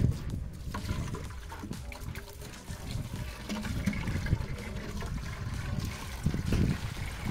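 Muddy water and sand being poured and scraped out of an aluminium pot onto a plastic gold classifier sieve, a steady trickling and splashing through the mesh with scattered small knocks.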